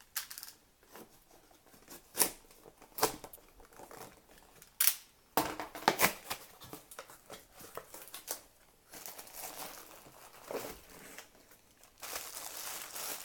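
A cardboard product box being opened by hand, with a series of sharp tearing and snapping sounds and crinkling packaging. Near the end it turns to a steady rustle.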